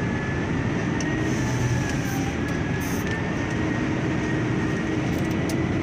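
HOWO dump truck's diesel engine running steadily in third low gear, heard from inside the cab, a steady drone with a faint high whine above it.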